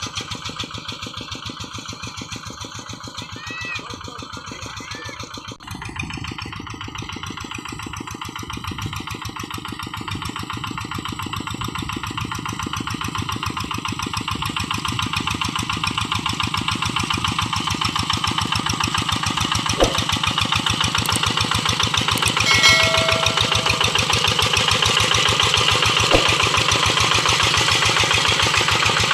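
Single-cylinder Kubota diesel engine of a Quick G1000 hand tractor running under load while working a rice paddy, its rapid even firing knock steady throughout. It grows steadily louder over the second half.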